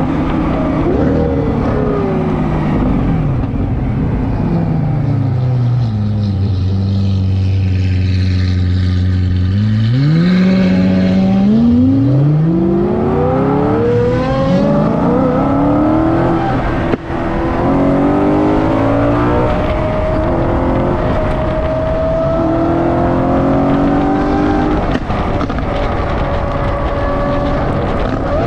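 Straight-piped 6.5-litre V12 of a Lamborghini Aventador Ultimae with a Valvetronic exhaust, heard from a car following it. The revs fall over the first few seconds, hold low and steady for a few seconds, then climb hard through several quick upshifts, each gear a rising sweep, before it settles into cruising with gentle rises in pitch. A single sharp click comes about halfway through.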